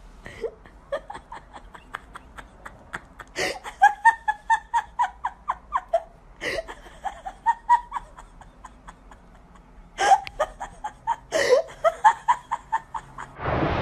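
A person laughing hard off camera: runs of quick, high-pitched pulses, about five a second, broken every few seconds by a sharp intake of breath.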